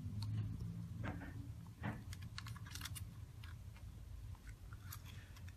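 Light, scattered clicks and taps of a small plastic device being handled: the alarm-clock spy camera's case and microSD card slot being worked by hand. A faint low hum runs underneath.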